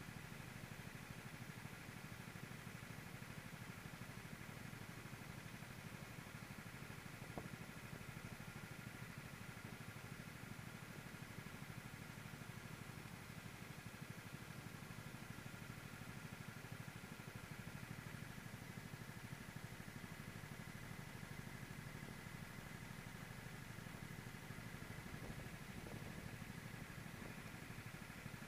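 Racing kart's engine running on track, heard from on board: a steady engine hum with little change in pitch.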